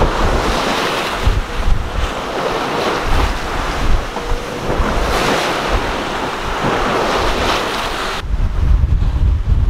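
Sea water rushing past a sailing yacht under sail at about seven knots, coming in surges, with wind buffeting the microphone. A little past eight seconds the water hiss drops away and the low wind rumble takes over.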